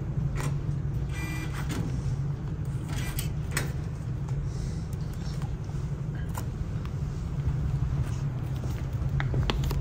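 Steady low hum of an underground car park, with scattered clicks and knocks and a brief whirr from a parking pay machine as it processes a card payment and hands the card back.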